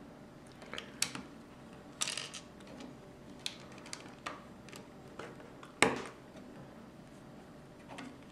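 Small plastic clicks and taps of Lego pieces being handled and pressed on a model car on a wooden tabletop. They come at irregular moments, with a louder knock about six seconds in.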